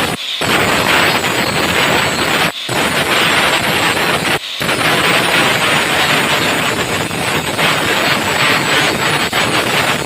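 A power grinder running against steel: a loud, steady, hissing grind as a knife blade is shaped, broken off for an instant about a third of a second in, at about two and a half seconds, and at about four and a half seconds.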